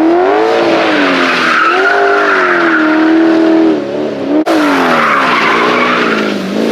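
Car with a swapped-in Chevy 6.0 LS V8 driven hard, the engine's pitch rising and falling at high revs with tires squealing. The sound breaks off sharply about two-thirds of the way in and picks up again at once.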